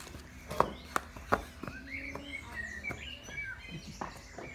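Three sharp knocks in quick succession about a second in, then a bird chirping in short rising and falling notes.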